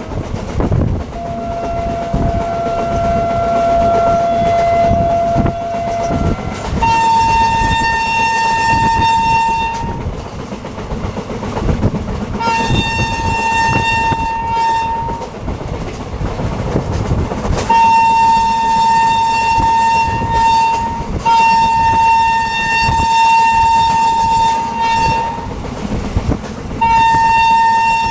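WAP-7 electric locomotive's horn sounding five long blasts, each two to four seconds, over the rumble and clickety-clack of the train's wheels on rail joints. Before the first blast a fainter, lower steady tone is held for about five seconds.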